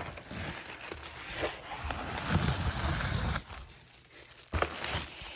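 Paper and plastic packaging crinkling, rustling and tearing as a mailed book package is opened by hand, with a sharp knock about four and a half seconds in.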